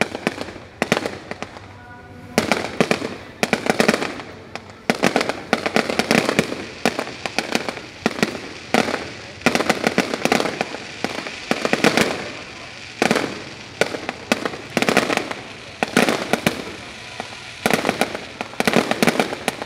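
Aerial fireworks bursting in quick succession, a sharp bang about every second, each trailing off in crackle and rumble.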